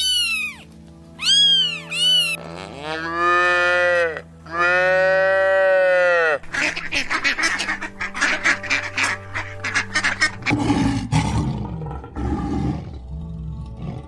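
A sequence of animal calls over soft background music: a domestic cat meowing several times, the last two meows long and drawn out; then a flock of ducks quacking rapidly; then, from about ten seconds in, a lion's low roar.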